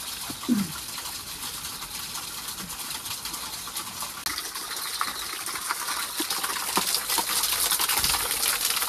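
A small stream of water pouring off a rock ledge and splashing onto stones, a steady rushing that grows louder toward the end. A short low sound about half a second in.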